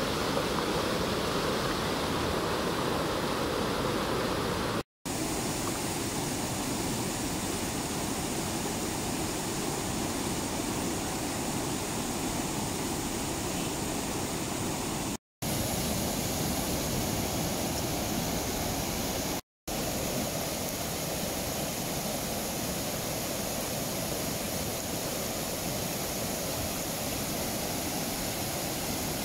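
Muddy flash-flood torrent rushing over rocks and a road crossing: a steady, continuous rush of water, broken by three brief gaps of silence.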